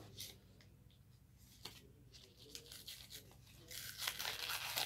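Cardboard starch box being torn and peeled away from a block of baked starch: faint scratching at first, then louder tearing and rustling near the end.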